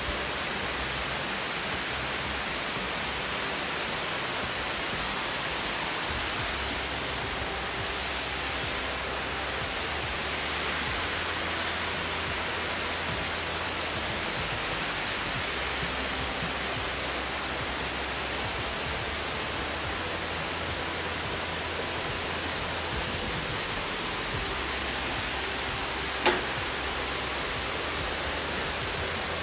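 A waterfall running: a steady, even rush of falling water, with one sharp click near the end.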